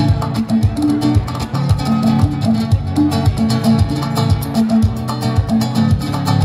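Live acoustic guitar and drum kit playing an instrumental passage with a steady beat and a moving bass line.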